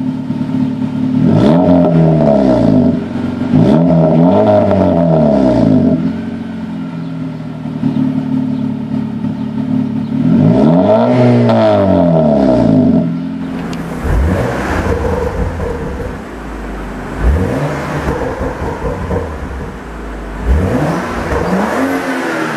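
2013 Honda Civic Si four-cylinder, with a cheap aftermarket exhaust and Takeda intake, idling and revved three times, each rev rising and falling back. About halfway through it gives way to a 2014 BMW M235i's turbocharged inline-six on its stock exhaust, blipped in several quick short revs.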